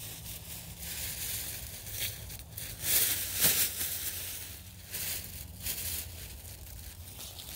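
Thin paper of a sky lantern crinkling and rustling as it is handled, in irregular bursts, loudest about three seconds in.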